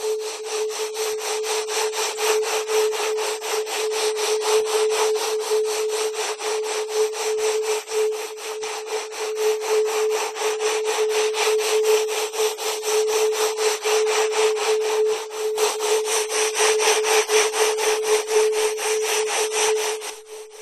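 Electronic audio track: a steady mid-pitched tone under a dense, rapidly pulsing rasping noise, like coarse static.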